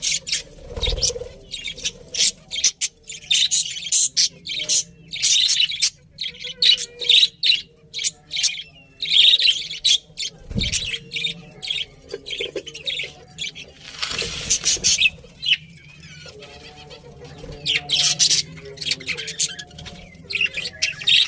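Budgerigars chirping and chattering: a flock of rapid, short, high chirps, with a brief rustle about two-thirds of the way through.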